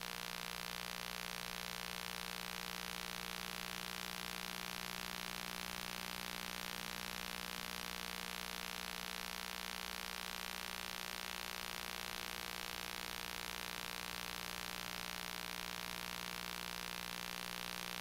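Steady electrical hum and hiss with no voice in it, the sound of a dead or disconnected microphone feed.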